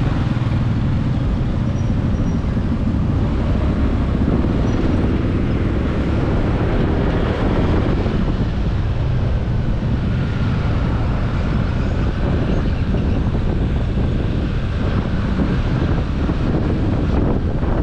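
Steady vehicle and road noise with wind buffeting the microphone.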